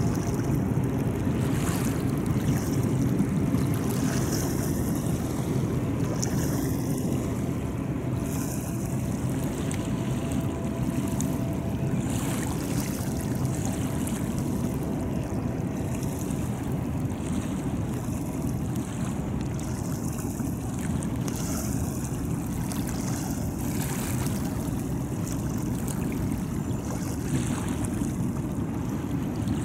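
Steady wind and lapping river water over a low, even rumble from a distant diesel freight train.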